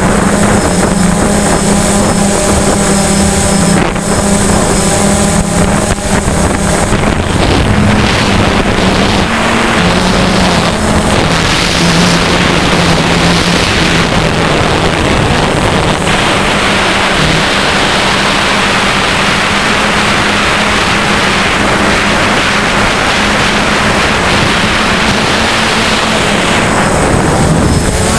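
DJI Phantom quadcopter's brushless motors and propellers buzzing steadily, the pitch wavering slightly as the motor speed changes. A strong rushing hiss of wind on the microphone joins about a third of the way in and fades away near the end.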